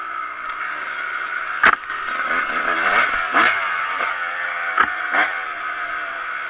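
Kawasaki KX125's two-stroke single-cylinder engine running as the dirt bike is ridden along a trail, its pitch rising and falling with the throttle. Several sharp knocks and clatters cut in, the loudest about a second and a half in and another near five seconds.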